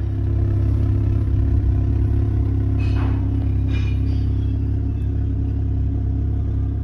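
Car engine running steadily with a deep rumble; two short clattering sounds come about three and four seconds in.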